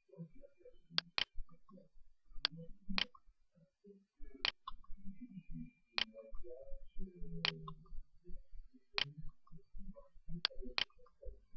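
Sharp clicks recurring about every second and a half, some in quick pairs, over faint low, uneven sounds.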